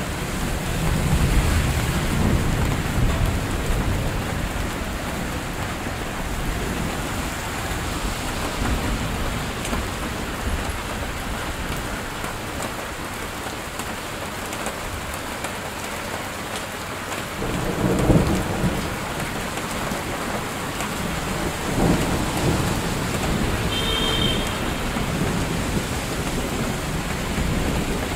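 Heavy rain falling steadily on a wet street, an even hiss. Deeper low rumbles swell up a couple of seconds in and twice more in the second half.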